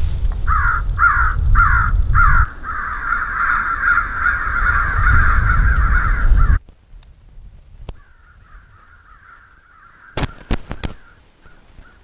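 Crow calls played through a FoxPro electronic game caller on its 'Crows' setting, over a low rumble. Four loud caws are followed by a continuous chorus of overlapping cawing, which cuts off suddenly about six and a half seconds in. Fainter cawing follows, with a few sharp knocks near the end.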